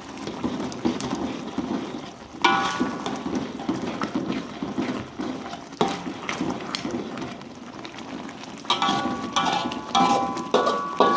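A metal spatula stirring and scraping in a cooking pan, with ringing metallic clinks as it strikes the pan, starting about two and a half seconds in and again near the end.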